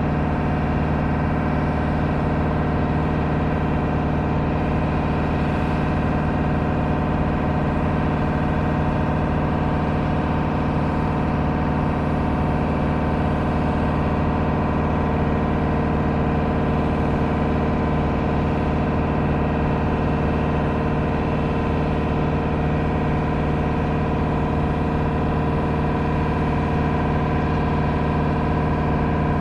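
Diesel engine running steadily at a constant speed with a buzzy drone, powering the hydraulics of a Multitel J340TA truck-mounted boom lift while the raised boom moves.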